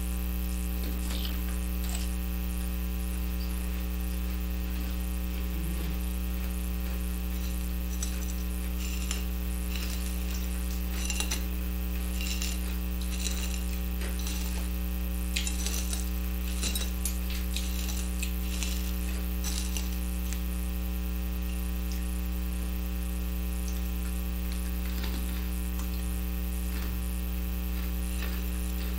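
Steady electrical mains hum with its overtones, the loudest sound throughout. Over it, faint short crunches and clicks come mostly between about eight and twenty seconds in, from chewing a pickle and dipping pickle pieces into hot Cheeto dust.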